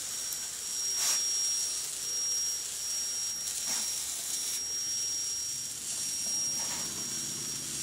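Small geared DC motors of a four-wheeled hobby robot whirring as it drives, over a steady high-pitched whine and hiss, with a few brief swishes.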